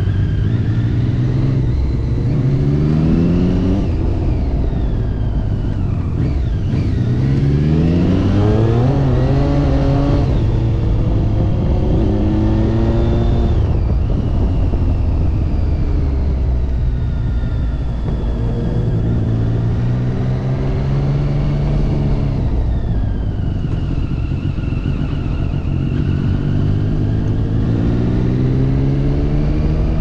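Sport motorcycle engine heard from the rider's seat, accelerating several times with its pitch climbing through the revs and dropping back at each gear change or roll-off, over steady wind noise.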